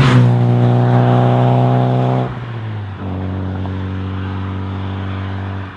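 VW Golf 3 GTI's 115 PS eight-valve four-cylinder engine with its stock exhaust, running at steady revs. About two seconds in the note dips, and a second later it comes back at a slightly lower, steady pitch.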